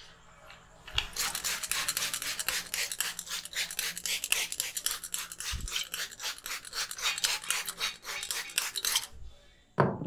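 Rapid rhythmic rubbing strokes, about five or six a second, which stop about nine seconds in. A single sharp, loud slap follows just before the end.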